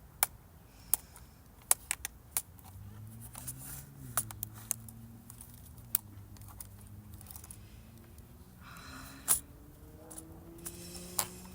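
Irregular sharp clicks and taps of plastic laptop parts and small tools being handled while a Sony Vaio laptop is pried apart, with a brief scraping rustle a little past nine seconds.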